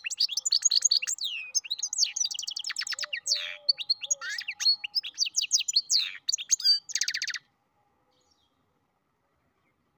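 Goldfinch × canary mule (a European goldfinch–canary hybrid) singing a fast, continuous song of rapid trills and sweeping whistled notes, which stops suddenly about seven and a half seconds in.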